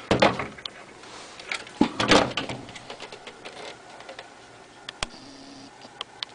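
Plastic and metal parts of a DLP TV optical engine being handled and pulled loose: scraping and knocking, loudest just after the start and again about two seconds in, then a few light clicks near the end.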